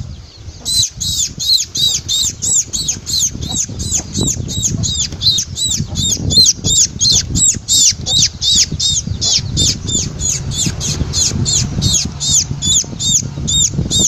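A fledgling sparrow held in the hand calls over and over with short, high chirps, about three a second, begging while being hand-fed rice. A low rustle sits underneath.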